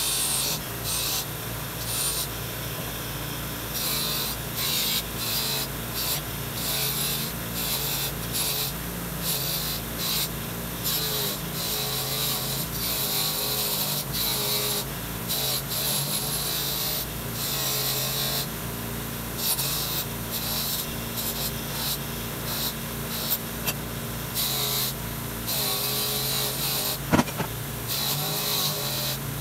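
Bench grinder running with a wire wheel while small metal plane parts are pressed against it in short passes: a steady motor hum under irregular bursts of scratchy hiss as the wire brushes the parts clean. One sharp click near the end.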